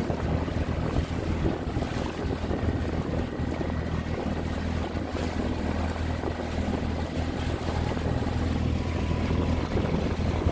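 An inflatable dinghy's outboard motor running steadily under way, with wind buffeting the microphone and water rushing along the hull.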